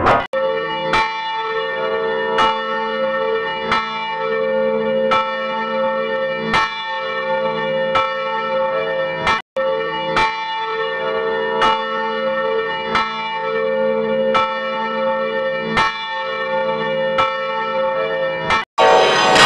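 Bells struck in a steady sequence, about one strike every 0.7 seconds, each ringing on into the next, with the notes changing from strike to strike. The sound cuts out for an instant twice, about halfway through and near the end.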